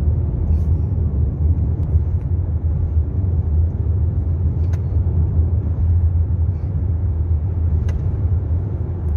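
Steady low rumble of a 2012 Hyundai Santa Fe cruising, engine and road noise heard from inside the cabin, with a few faint clicks.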